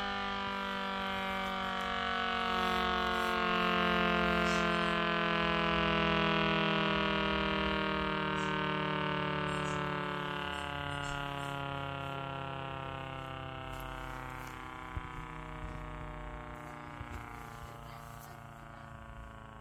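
Electric motor in a 3D-printed chopper assembly winding down, its whine falling slowly and steadily in pitch as it fades. A few faint ticks come near the end.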